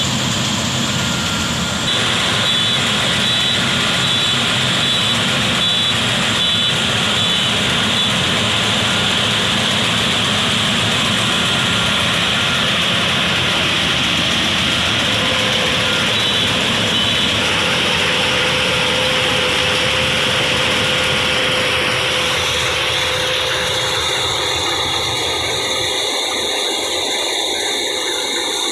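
Rice harvesting machine running steadily with its engine and cutting mechanism working; the deep part of the sound drops away over the last few seconds.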